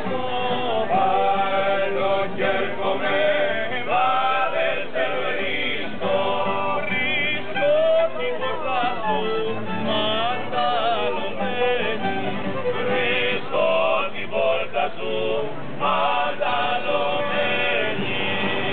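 Troubadours' song: a singing voice, wavering in pitch, over instrumental accompaniment.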